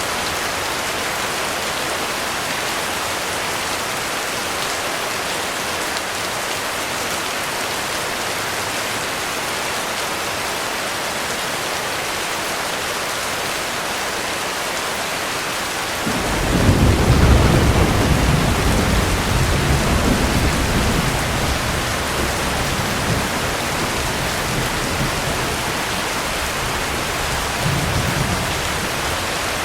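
Heavy rain falling steadily. About sixteen seconds in, a long roll of thunder begins suddenly, rumbling low for several seconds before fading back under the rain, with a smaller rumble near the end.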